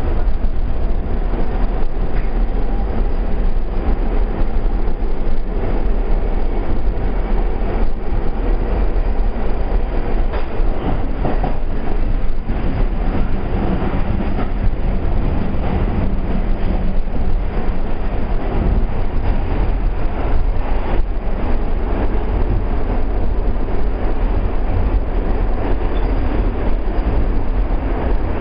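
NYC Subway R44 car running along the track, heard from inside the car: a steady, loud rumble of wheels and running gear with frequent clicks.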